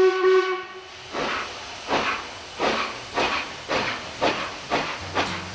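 Steam locomotive's whistle sounding a steady note that stops about a second in, then the exhaust chuffing in a regular beat, about three chuffs every two seconds, as the locomotive hauls its train of coaches.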